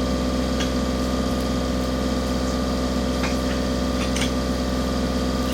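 Heavy-equipment diesel engine running steadily at raised throttle, with a few light clicks and knocks over it.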